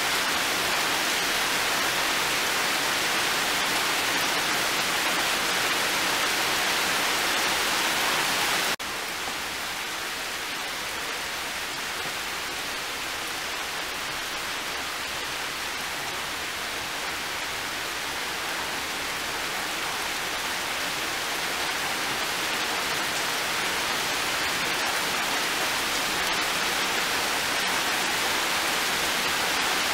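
Heavy rain pouring down steadily. About nine seconds in it suddenly becomes quieter, then builds gradually toward the end.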